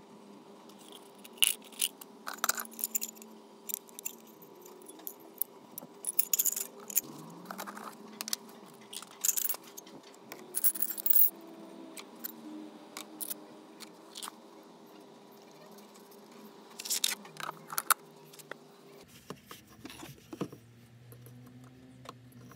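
Small rusty metal parts of a car horn, washers and nuts, clinking and clattering as they are handled and dropped, an irregular run of sharp clicks and rattles over a faint steady hum.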